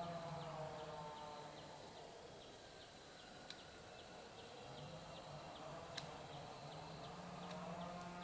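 A faint motor hum that slowly drops in pitch and then rises again, under a short high chirp repeating several times a second, with two sharp clicks in the middle.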